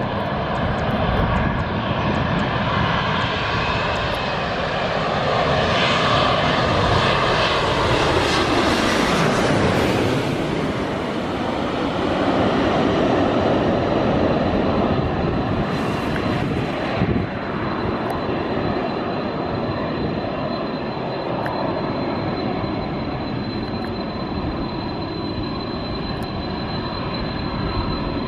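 Twin-engine jet airliner passing low overhead on its landing approach: the engine noise builds to a loud peak with a falling sweep in pitch as it goes over, swells again about twelve seconds in, then carries on more evenly as the jet rolls down the runway.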